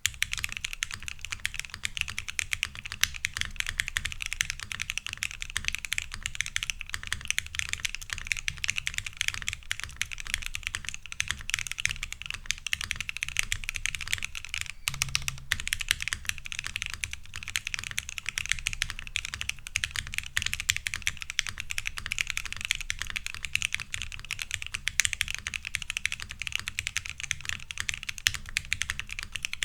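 Continuous fast typing on a Neo 80 mechanical keyboard with stock factory-lubed Gateron Snow Rabbit switches, a full POM plate and PBT keycaps, sandwich-mounted with O-rings and no foam dampening: a steady stream of keystroke clacks.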